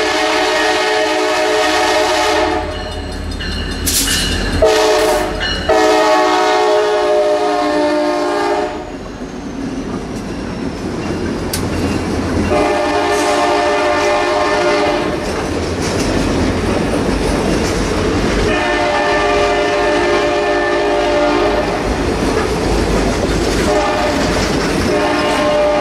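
Nathan K5LA multi-chime air horn on an EMD F40PH-2 diesel locomotive sounding in several long blasts and one short one as the passenger train passes. Between blasts, the passenger cars' wheels rumble and clickety-clack over the rail joints.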